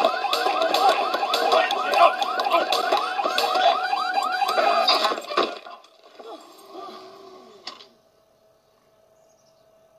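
Car alarm sounding, a rapid warbling whoop that rises in pitch several times a second, cutting off abruptly with a thump about five and a half seconds in. Fainter shuffling sounds and a single click follow.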